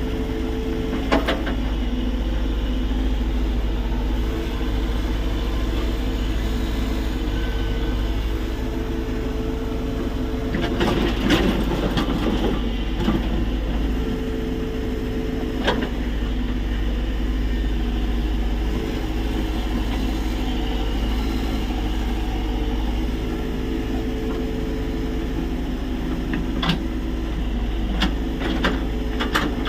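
Tata Hitachi EX70 excavator's diesel engine running steadily while digging, with a few short sharp knocks along the way.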